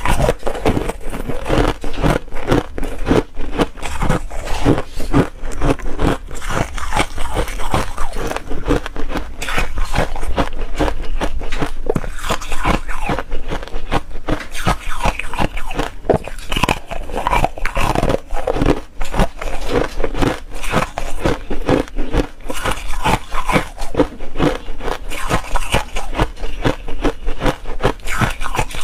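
Frozen foam ice being bitten and chewed close to the microphone: a dense, continuous run of crisp crunches and crackles as the ice breaks between the teeth.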